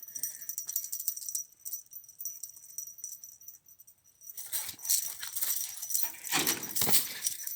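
Jingling and rattling in bursts as a dog plays with a fishing-rod teaser toy. It quiets in the middle, then becomes a busy clatter of jingles and clicks over the last few seconds.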